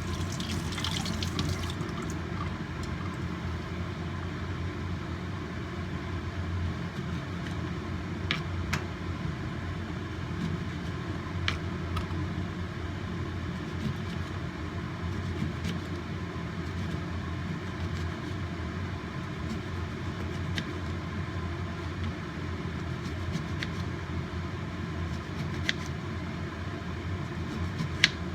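Two glasses of water heating in a pot on the stove, being brought to the boil: a steady low rumble with a few faint clicks.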